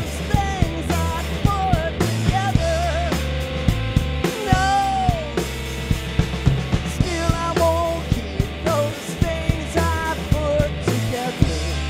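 Post-punk band playing live: a steady drum beat, a driving bass line and electric guitar, with high sliding melodic lines over the top, in an instrumental stretch of the song.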